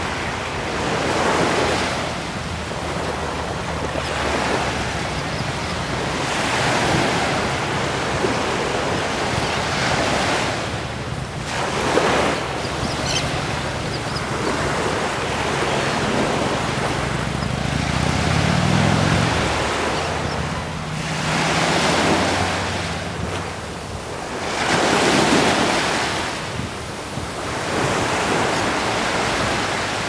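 Small surf breaking and washing up a sandy beach, the rush of water swelling and fading every few seconds.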